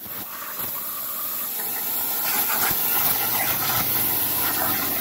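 CNC plasma table's torch cutting steel plate: a loud, steady hiss of the plasma arc and compressed air that builds over the first two seconds and then holds.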